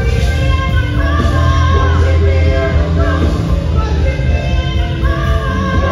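Live gospel worship band: a female lead singer with backing vocalists singing over keyboard and a strong, steady bass line, with long held notes.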